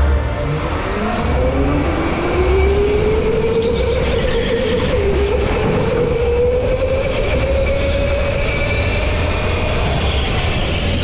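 A go-kart's motor whines under the kart as it drives, rising in pitch over the first few seconds as it picks up speed, then holding and wavering through the corners. A low rumble runs underneath, and high squeals come in now and then.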